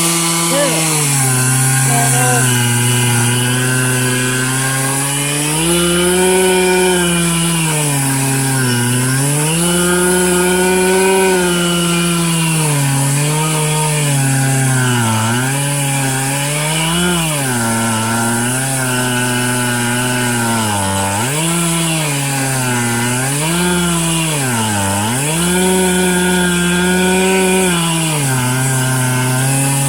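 Stihl MS 441 C-M Magnum two-stroke chainsaw running at high revs while milling a red oak log lengthwise. Its engine pitch sags and recovers again and again as the chain takes and eases the load, dipping more deeply and more often in the middle part.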